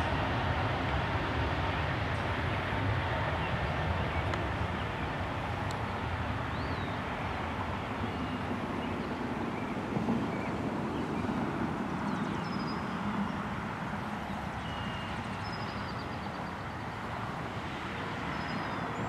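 Jet airliner engine noise: a steady rumble with a faint whine, easing slightly near the end.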